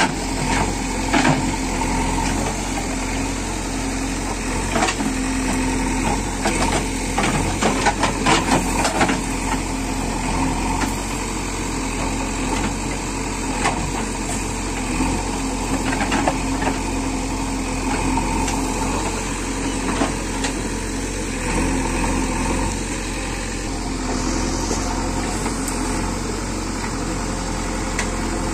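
Backhoe loader's diesel engine running steadily, with a cluster of sharp knocks and clanks in the first ten seconds or so.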